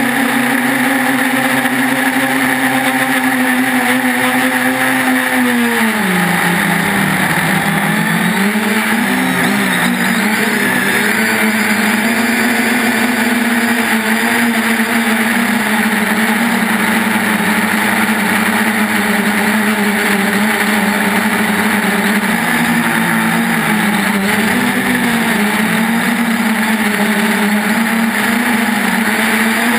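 3DR Iris+ quadcopter's four brushless motors and propellers buzzing in flight. The pitch holds steady, drops about six seconds in, then wavers up and down as the throttle changes.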